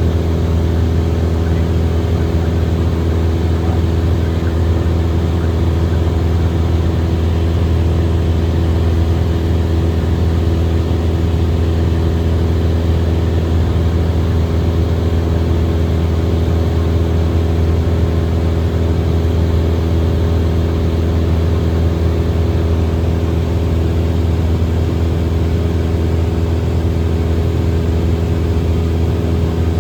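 Airplane engine running steadily in cruise, heard from inside the cockpit: a constant loud low hum with several steady tones that never changes and drowns out talk.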